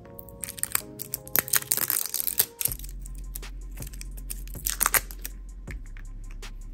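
Crackling and tearing of thin plastic wrap being peeled off a small gloss tube, a quick flurry of crackles over the first two seconds and another short burst about five seconds in, over soft background music.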